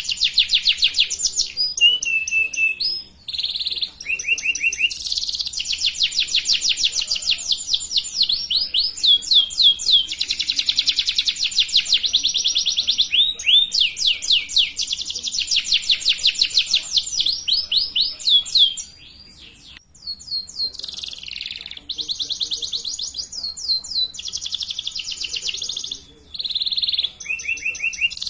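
Domestic canary singing: long, fast trills of rapidly repeated high notes, changing from one trill to the next, with a short lull about two-thirds of the way through.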